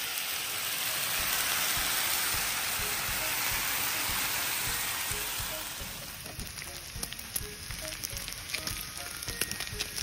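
Bacon strips sizzling on a propane flat-top griddle: a loud, steady sizzle for about six seconds, then quieter crackling with scattered pops and spits.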